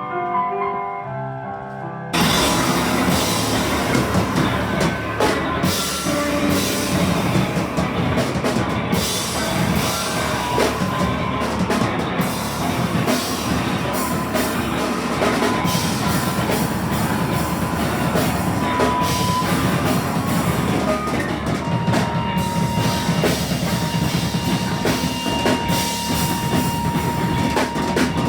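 Live noise rock: a few seconds of keyboard notes, then an abrupt cut into a loud drum kit under a dense wall of distorted noise. A steady high tone enters in the last few seconds.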